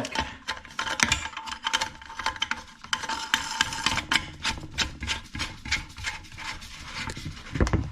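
Plastic lock nut being spun by hand onto the threaded shank of a new toilet flush valve: a run of quick rasping clicks as plastic rubs and ratchets on plastic.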